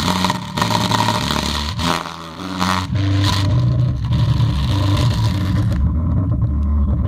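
Sound system played loud for a bass test, deep bass notes dominating. The sound dips briefly about two seconds in, then the bass comes back strongly.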